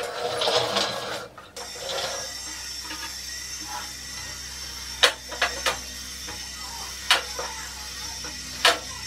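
Cantilever trays of a small sheet-metal tool cart worked by hand: metal trays and their hinged arms clanking and clicking as they fold and open, with a rattle in the first second or so, then a few sharp clicks about five seconds in, one near seven seconds and one near the end.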